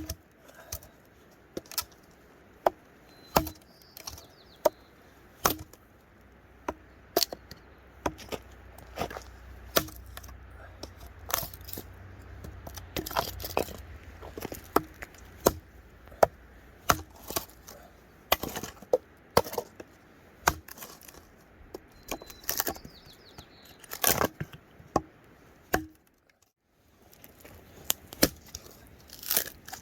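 Wood being chopped or split at a campsite: sharp, irregular wooden knocks and cracks, roughly one a second, with a short pause near the end.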